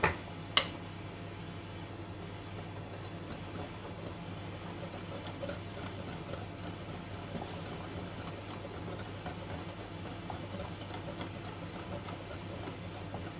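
A steady low machine hum with faint scattered ticks, and one sharp click about half a second in.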